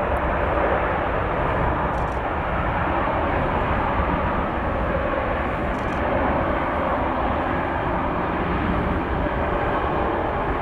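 Jet airliner engines running, a steady even roar with no clear rise or fall.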